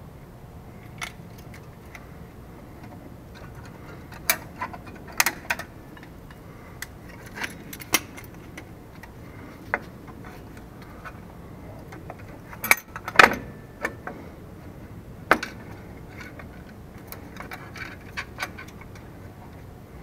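Metal clinks and clicks of drum brake shoes, springs and hardware being handled and fitted onto a 1981 K5 Blazer's rear brake backing plate. The clicks come irregularly, with the loudest in a cluster a little past halfway.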